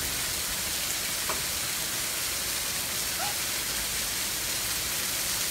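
Steady heavy rain, with water spilling from an overflowing gutter and splashing onto the concrete.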